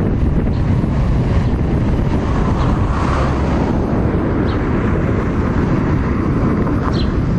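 Class 158 diesel multiple unit running at a distance, a low steady drone, mixed with wind buffeting the microphone.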